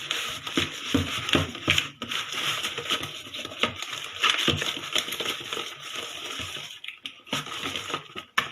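Wire whisk beating cake batter in a bowl by hand, an irregular run of scraping and tapping strokes.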